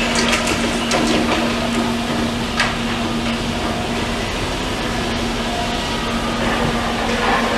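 Demolition excavator running steadily with a constant engine hum, with knocks and cracks of breaking debris in the first second or so and one sharp crack about two and a half seconds in.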